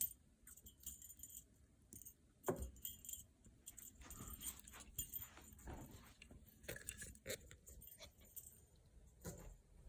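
Faint jingling of a dog's collar tags with scattered light knocks and rustles as the dog moves about.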